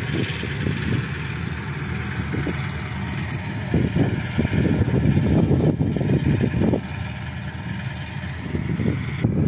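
Farm tractor engine running, heard from on board as a steady rough rumble, with wind buffeting the microphone.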